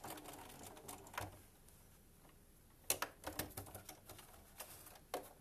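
Scattered sharp clicks and light taps, with a short cluster about three seconds in: fabric and a sewing machine being handled as a pair of patchwork wedges is set in place for stitching.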